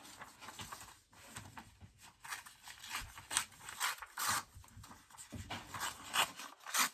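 Paper being handled for a collage: a series of short rustling, scraping strokes of paper on paper and on the work surface.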